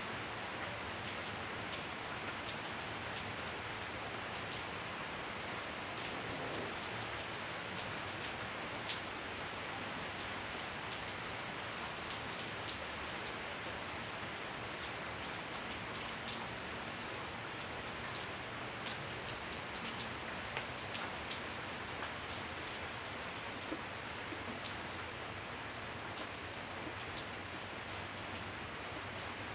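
Steady rain falling on wet concrete paving and broad leaves: an even hiss with scattered close drops ticking through it.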